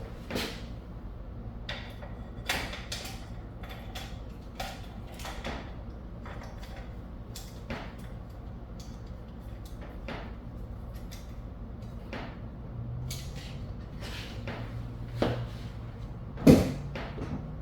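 Scattered clicks and knocks of a rifle and the parts of a Tipton standing gun vise being handled and fitted, with one louder knock near the end, over a steady low hum.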